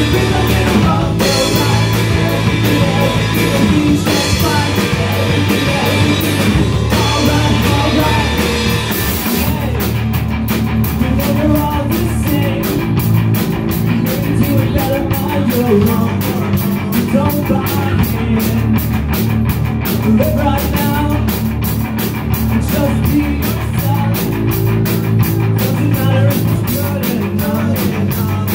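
Live punk rock band playing: electric guitar, electric bass and drum kit, with a singer's voice over them. About nine seconds in, the drumming changes to a fast, even beat.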